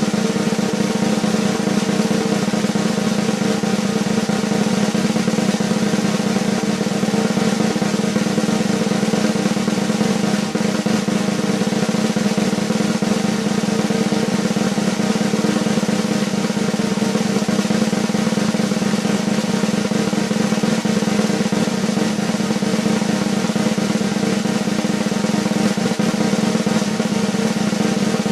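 Snare drum roll, a continuous fast roll held at an even level without a break.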